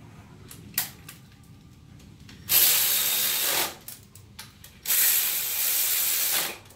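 Cordless electric ratchet running intake manifold nuts down in two spins, one of about a second and one of about a second and a half, after a light click.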